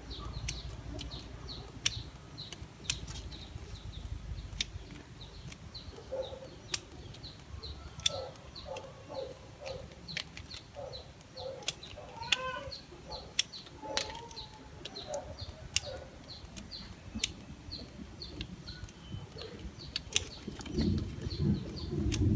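Bonsai pruning scissors snipping the leaves and shoots of a ficus, about one sharp snip a second, with a louder rustle of the branches near the end. A bird chirps repeatedly in the background.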